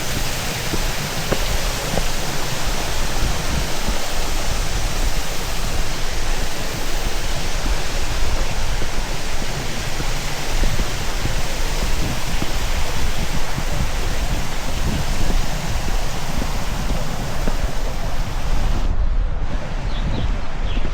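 Steady, loud rushing of water, with a rumble from wind on the microphone underneath. The high hiss drops off suddenly near the end, leaving the low rumble.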